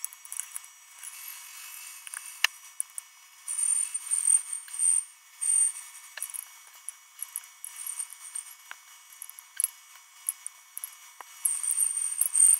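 Hand-tool work on a turbo's compressor backplate: a hex key turning and seating the backplate screws, with sharp metal clicks and scrapes. A high thin whine comes and goes, about three and a half seconds in and again near the end.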